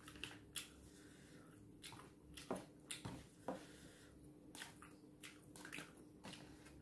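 Faint scattered clicks and rustles of a fork and a plastic-gloved hand picking at meat in a takeaway food box, over a low steady hum.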